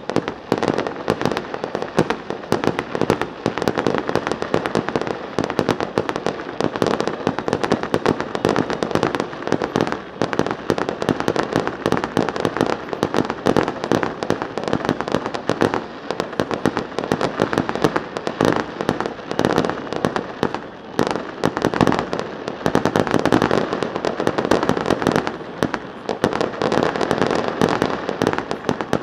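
Fireworks display: a dense, continuous barrage of bangs and crackles, many overlapping with no pause.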